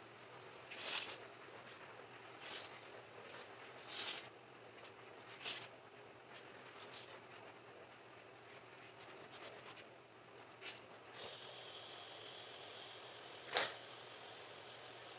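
Carpet-cleaning machine worked over a rug: short swishing strokes about every second and a half over a steady hiss, then the hiss alone, with a sharp click near the end.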